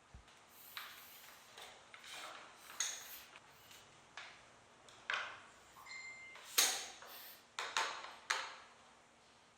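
Hands working on a laptop: a string of small plastic and metal clicks, taps and short scrapes at irregular intervals, one louder click about a third of the way in and another just past the middle.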